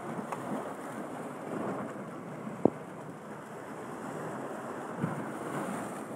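Sea waves washing steadily, with wind on the microphone. A single sharp click, rod or tackle handling, cuts through about halfway, with a couple of softer knocks around it.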